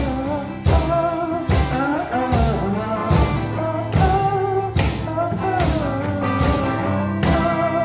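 A band playing a song live: singing over acoustic and electric guitar, with a steady beat struck on a makeshift drum made from a metal tub.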